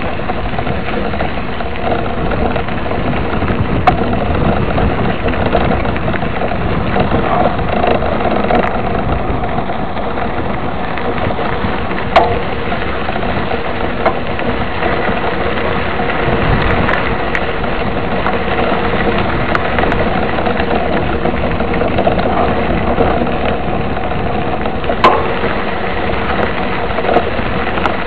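Steady road noise of a mountain bike's tyres rolling over a gravel dirt road, picked up through a bike-mounted camera, with a few sharp knocks from bumps, the loudest about 12 and 25 seconds in.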